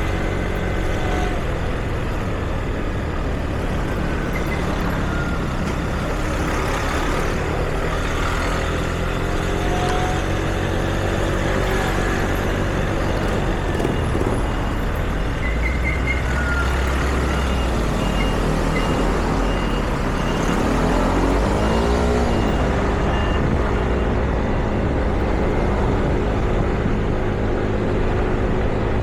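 Street traffic: vehicle engines running and passing, with one vehicle's pitch sweeping up and back down as it goes by. A run of short, evenly spaced beeps sounds through the middle.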